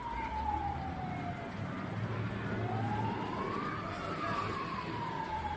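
Emergency vehicle siren wailing: one pitch that slides slowly down, rises again about halfway through and slides down once more, over a steady low rumble and hiss.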